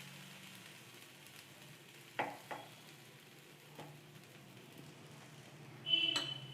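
Adai batter sizzling faintly on an oiled dosa tawa. A few light utensil taps come about two seconds in, and a louder ringing clink comes near the end.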